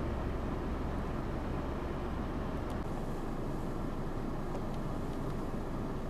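Steady rush of strong blizzard wind, mixed with the low rumble of vehicles crawling along a snowy highway; the rumble drops away about three seconds in, leaving mostly the wind.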